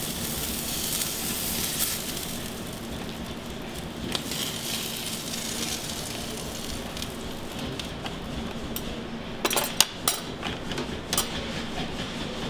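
Seafood sizzling on a flat steel griddle, a steady hiss that thins out as the pieces are lifted off, over a steady low hum. A few sharp clinks of a metal spoon and dishes come near the end.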